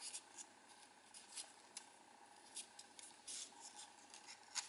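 Faint crinkling and rustling of origami paper being folded and creased by fingers, in short scattered crackles.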